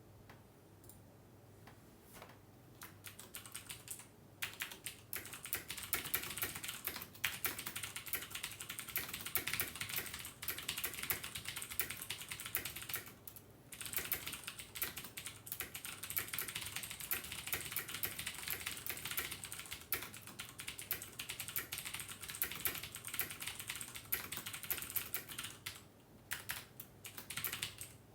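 Fast, continuous typing on a computer keyboard: a dense run of rapid key clicks. It starts a few seconds in and has a brief pause about halfway through.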